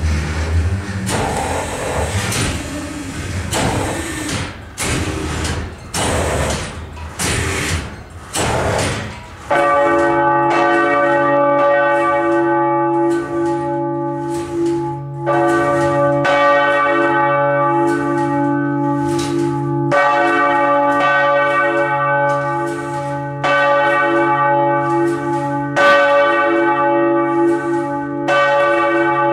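Two large Lhéritier-Dubois bronze church bells of 2.2 and 2.5 tonnes swinging in full peal, their clappers striking in a steady run. The first strokes are noisy. From about a third of the way in, the bells ring out with a clear, lingering tone, and the heavier bell joins about two-thirds of the way in.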